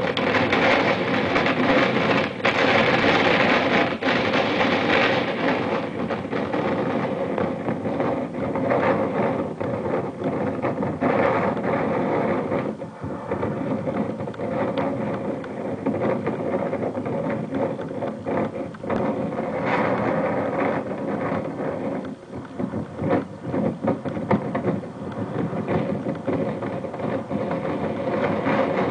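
Strong wind buffeting the camera microphone in gusts, a loud rushing noise with the sound blown out and distorted.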